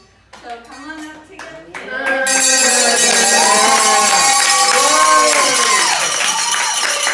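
A roomful of students clapping and cheering, breaking out suddenly about two seconds in, with long drawn-out whoops over the applause.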